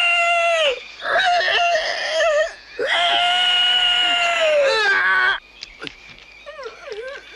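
A man squealing like a pig on command: loud, long, high-pitched wailing squeals, three held cries in a row, then fainter short whimpering squeals near the end.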